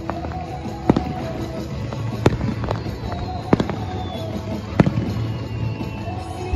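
Aerial fireworks bursting: four sharp loud bangs about a second and a half apart, with smaller pops between, over music playing.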